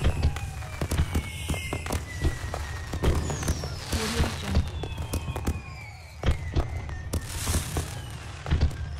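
Fireworks display: a dense run of bangs and pops, with several whistles sliding slowly down in pitch. Bursts of crackle come about four seconds in and again near the end.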